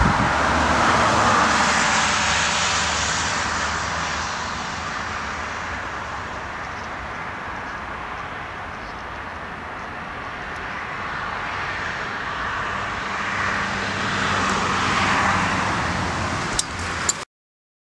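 Jet engine noise from an Ilyushin Il-76TD-90VD's four PS-90A-76 turbofans on the landing roll: a loud, steady rush that fades through the middle, swells again near the end, then cuts off suddenly.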